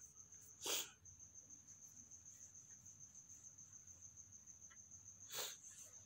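Near silence: a faint high-pitched trill pulsing evenly in the background, with two short breath-like sounds, one under a second in and one near the end.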